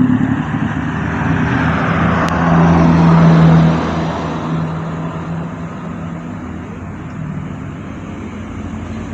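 A motor vehicle passing close by on the road. Its engine and tyre noise is loudest about three seconds in and fades away after that.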